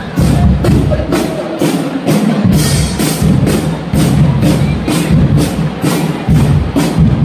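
Music with a steady percussive beat, about three strokes a second.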